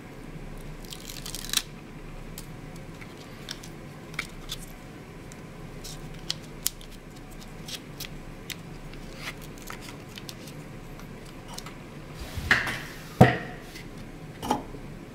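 Hands handling small plastic parts of a model train car and its fan motor: scattered light clicks and taps, a short rustle, and a louder knock about thirteen seconds in, over a faint steady hum.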